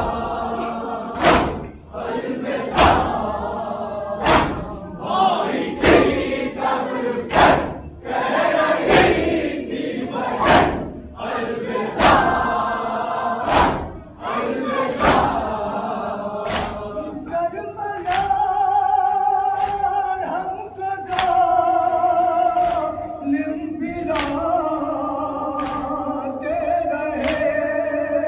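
Massed men's voices chanting a noha, a Shia mourning lament, in unison, with a sharp collective chest-beating (matam) stroke about every one and a half seconds. After about seventeen seconds the chant turns into long held sung notes while the beats carry on more softly.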